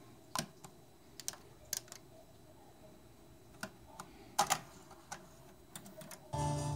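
TEAC V-8030S cassette deck's transport buttons and mechanism clicking, about a dozen scattered clicks with a close double click about four and a half seconds in. Near the end, tape playback starts: music with a steady low bass comes in suddenly.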